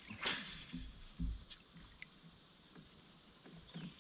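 A quick swish of a fishing rod being swung in a cast, followed by a few soft low knocks from the kayak.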